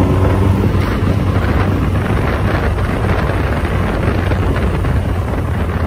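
Triumph TR2's four-cylinder engine running steadily under way, a low drone heard from the open cockpit with wind rushing over the microphone.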